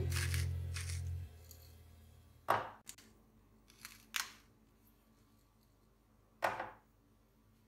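Background music fading out in the first second, then a pepper mill grinding black pepper in about five short crunchy twists.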